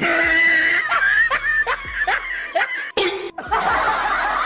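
Laughter in short repeated bursts, the pitch sliding up and down, with a change about three seconds in to a busier, denser stretch of sound.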